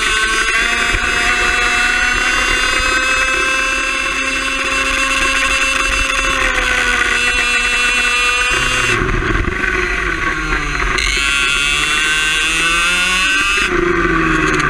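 Onboard sound of a Mach1 kart's BMB HAT two-stroke engine running at high revs, pitch climbing slowly along the straight. The revs fall sharply about eight and a half seconds in as the kart slows, climb again, and fall once more near the end.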